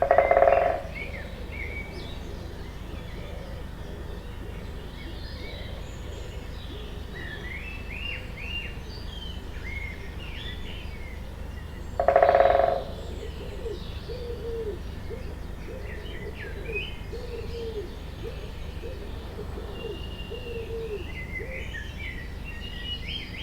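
Forest birdsong: several small birds chirping and trilling in high short phrases over a steady low rumble. Twice, about twelve seconds apart, a loud harsh call of under a second cuts in. After the second one comes a run of short low repeated notes lasting several seconds.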